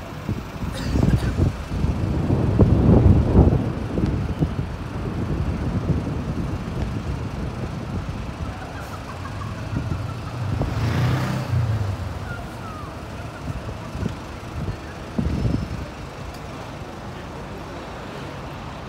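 City street traffic noise: a continuous low rumble of road vehicles, loudest about two to four seconds in, with another vehicle swelling past about ten seconds in.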